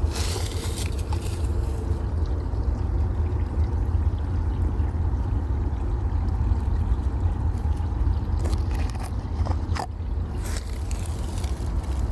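Low, gusting rumble of wind buffeting the microphone, with a few brief rustles or scrapes near the start and again toward the end.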